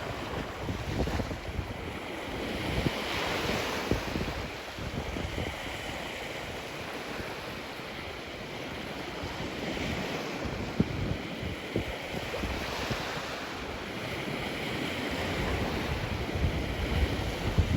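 Surf breaking and washing up the beach in recurring hissing swells, with wind buffeting the microphone in low rumbling gusts.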